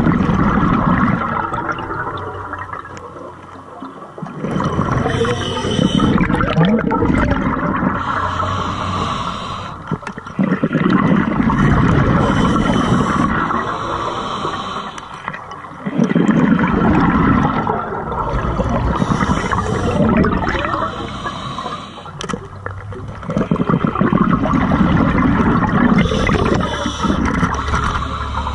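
Scuba diver breathing through a regulator underwater: a hiss on each inhale, then a rush of exhaust bubbles on each exhale. The breaths come about one every six seconds.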